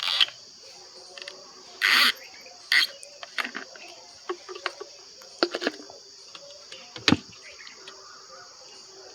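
Steady high-pitched chorus of crickets, with scattered clicks and knocks over it: a short noisy burst about two seconds in and a sharp knock about seven seconds in.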